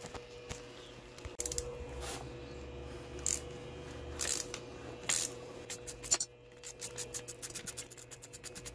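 Ratchet wrench on an extension working a cylinder-head nut loose: a few short scraping strokes of metal on metal, then quick ratchet clicking, about five clicks a second, near the end.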